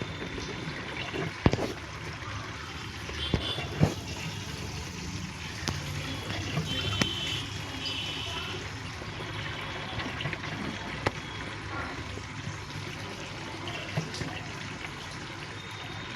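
Fully automatic washing machine running with water swishing and trickling in the drum, with scattered clicks and a few brief high squeaks.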